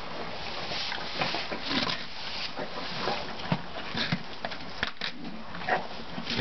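Horses eating off straw bedding. Hay and straw rustle as they nose through it, with irregular crunching and chewing clicks.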